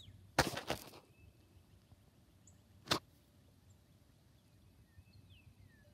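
Close handling noise from fingers working around a freshly dug coin in loose soil: a short rustle near the start and one sharp click a little before three seconds in. Faint bird chirps sound in the background.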